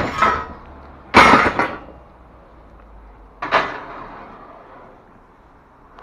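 Metal scaffolding parts clanking and knocking as they are handled and set in place: a loud clank about a second in and a weaker one at about three and a half seconds, each ringing briefly.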